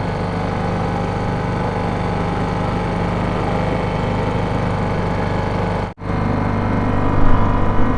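British Seagull two-stroke outboard motor running steadily at a constant speed, pushing the small boat along. The sound cuts out briefly about six seconds in, then the engine carries on.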